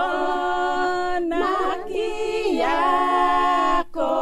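A group of voices singing unaccompanied, holding long notes together in short phrases with brief breaks between them.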